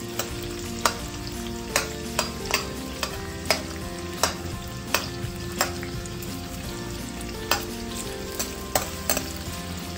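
Sliced onions sizzling steadily in hot sunflower oil in a stainless steel kadhai, being sautéed until translucent. A perforated metal spoon stirs them, and irregular sharp clinks of the spoon against the steel pan stand out above the sizzle.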